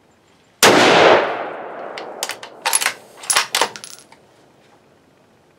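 A single rifle shot from a Savage Axis bolt-action rifle in 6.5 Creedmoor, about half a second in, with its echo dying away over a second or so. It is followed by a quick series of sharp metallic clicks as the bolt is worked to eject the spent case and chamber the next round from the magazine.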